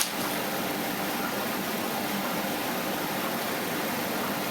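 Steady hiss of background noise, even and unchanging, with a single short click at the very start.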